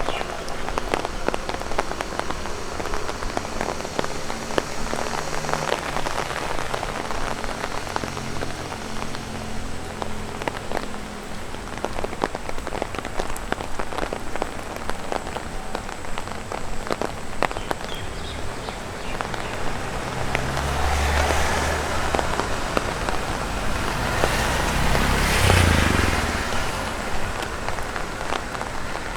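Raindrops tapping on an umbrella over steady light rain, many sharp taps throughout. From about twenty seconds in, a vehicle passes on the wet road with a low rumble and tyre hiss that swells, peaks about twenty-five seconds in, then fades.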